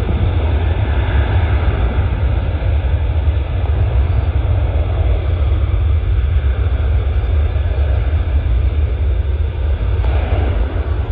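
Airliner's jet engines at takeoff power during the takeoff roll: a loud, steady roar over a deep rumble, swelling a little near the end.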